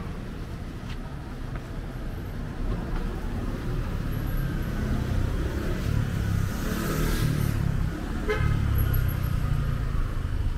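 Street traffic: a steady rumble of cars with a vehicle passing close by, and a short car horn toot about eight seconds in.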